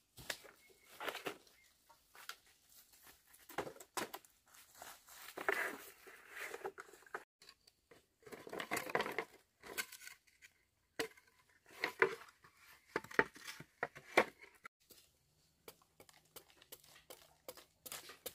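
Dry bamboo sticks and slats scraping, rustling and knocking together in irregular bursts as they are handled and laid by a fire. Near the end comes a quicker run of short, sharp knocks.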